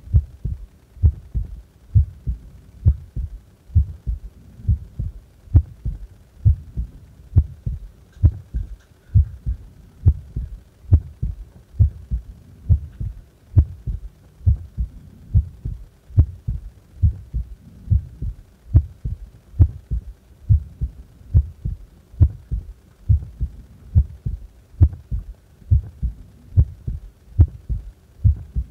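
Human heart at rest, beating steadily: each beat is a low double thump (lub-dub), about once a second.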